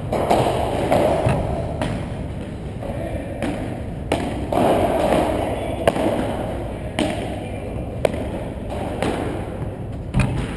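Padel rally: the ball is struck by solid padel rackets and bounces off the court and walls, giving about ten sharp pops at roughly one-second intervals over a steady background din.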